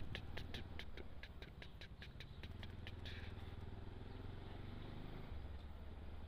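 Motorcycle engine running low and steady, with a fast, even ticking, about six ticks a second, that stops about three seconds in.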